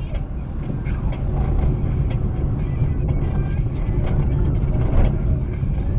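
Steady low rumble of a car on the road, with music playing over it.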